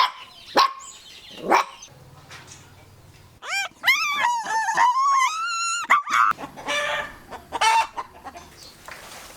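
Three short, sharp animal calls, then a rooster crowing once, a long call of about two and a half seconds that wavers up and down in pitch, followed by chickens clucking.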